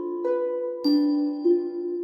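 Background music: gentle bell-like notes, struck about every half second and left to ring on over one another.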